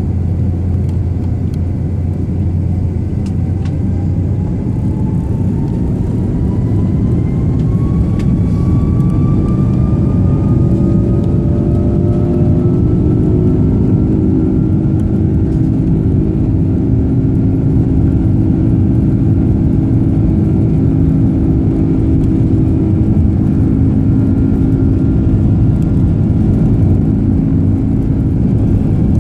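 Rolls-Royce Trent 772B turbofan engine of an Airbus A330-200 heard from inside the cabin, a steady rush with a whine that climbs in pitch over the first dozen or so seconds as the engine spools up, then holds; lower tones join about a third of the way in.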